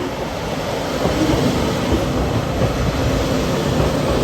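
Train running along the line: a steady rumble of wheels on rails with a low running hum.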